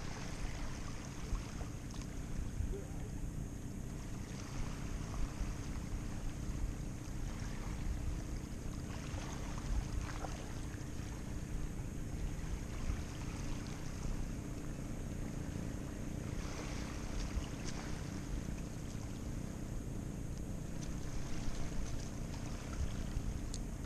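Wind buffeting the microphone in an uneven low rumble, over the faint wash of small waves lapping at a rocky shore.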